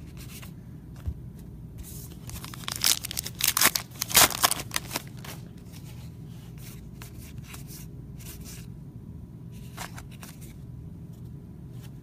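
A stack of Allen & Ginter baseball trading cards flipped through by hand, the cards flicking and sliding against each other. A louder run of rustling comes about three to five seconds in.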